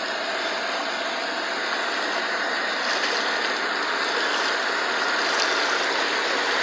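Farm tractor wading through deep floodwater: the engine running under a steady rushing of churned water, growing slightly louder.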